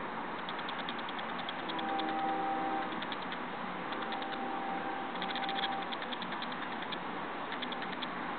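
Steady background rush of city noise, with a humming tone that comes and goes and a few short bursts of rapid high-pitched ticking.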